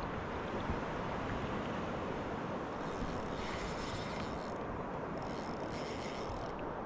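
Spinning reel being cranked in two bursts of a few seconds each, a fine mechanical whirring click, over a steady background rush.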